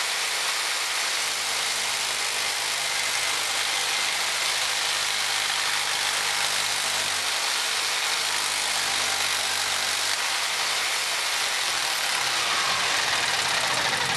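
Jigsaw mounted blade-up under a homemade steel table attachment, running steadily while a strip of wood is fed along its blade to shave about half a millimetre of paint off the edge.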